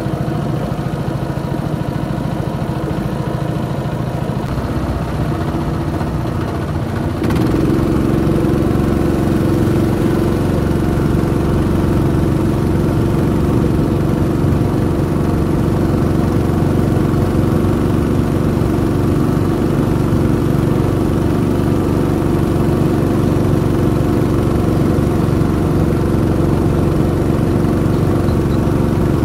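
Small outboard motor of a wooden river boat running steadily under way, with a steady drone. It steps up to a louder, fuller note about seven seconds in and holds there.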